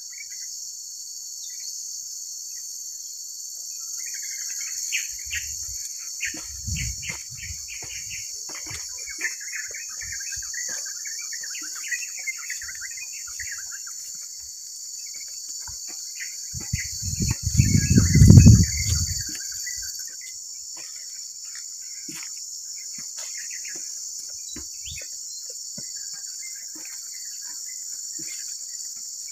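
Steady, high-pitched insect chorus, with scattered chirps in the first two-thirds. A few low thumps come about five seconds in, and a louder low rumble, the loudest sound, comes a little past the middle.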